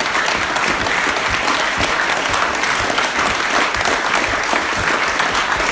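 A roomful of people applauding steadily, dense clapping with no break.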